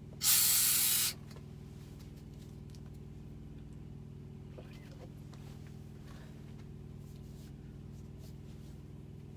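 A loud hiss lasting under a second just after the start, followed by a steady low hum of several held tones, with a few faint small clicks.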